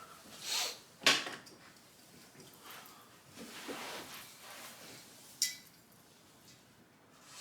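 Small metal tools and steel handled on a work surface: a sharp clink about a second in and another about five and a half seconds in, with soft rustling and shuffling between.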